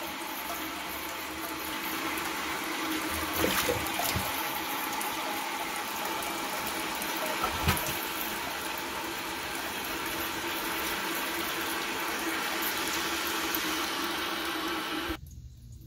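Toilet tank refilling after a flush: water runs steadily into the tank through the fill valve, then cuts off suddenly near the end as the valve shuts. No hiss follows: the valve, cleaned of calcium deposits, now seals.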